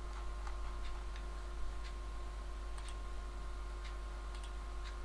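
Several short, sharp computer mouse clicks, spaced irregularly, over a steady low electrical hum with faint steady whining tones.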